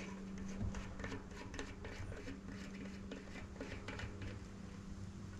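Light, irregular metallic clicks and scrapes as small bicycle parts are fitted by hand onto a rear hub axle, over a steady low hum.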